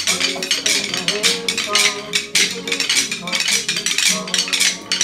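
A group of toddlers' rhythm sticks clicking together unevenly, several taps a second, over recorded song music with a melody.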